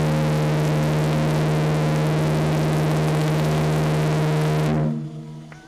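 A ship's steam whistle sounding one long, low-pitched blast over a hiss of steam, cutting off about five seconds in.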